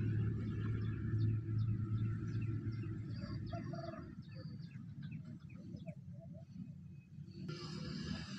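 Small birds chirping in quick short calls over a low steady rumble, which fades about halfway through; a brief hiss comes near the end.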